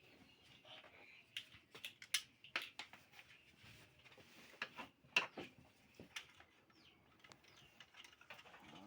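Irregular clicks and knocks of an electric fan being taken apart by hand, its housing opened to get at the parts inside.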